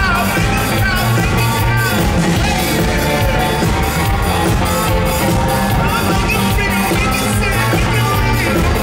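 Live rock band playing loudly in concert, with a driving, steady drum beat.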